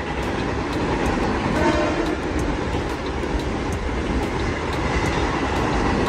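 Mumbai Western Railway electric local train arriving along the platform, its rumble and wheel clatter over the rail joints slowly growing louder, with a short faint horn note about two seconds in.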